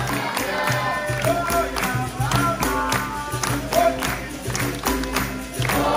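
Capoeira bateria playing live: berimbaus, pandeiros and an atabaque drum keeping a steady rhythm of strikes under group singing.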